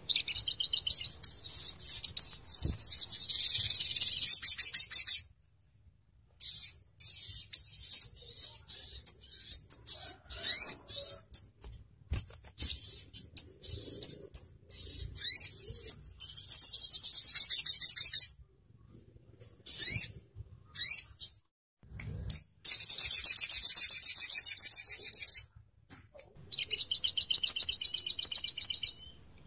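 Olive-backed sunbird (sogon ontong) song: four long, very rapid, high-pitched trills of two to five seconds each, the fast 'nembak' bursts, with short sharp chips and quick notes in between.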